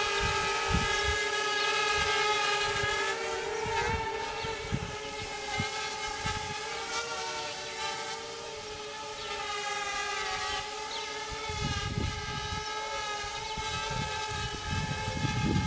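Parrot Bebop quadcopter's four propellers whining steadily in flight, with a few slight dips in pitch. Low rumbling thumps come near the end.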